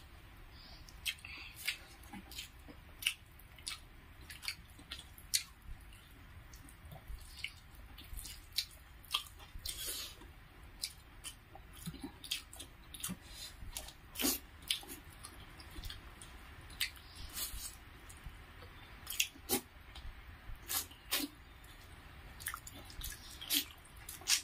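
Two people eating chicken curry and rice with their hands: an irregular run of short, wet smacks and chewing clicks, with fingers squishing rice.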